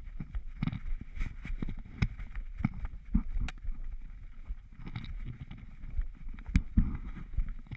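A tracking dog moving through grass, heard through a harness-mounted action camera: irregular thumps and knocks from its steps and the jostling harness, with grass brushing past.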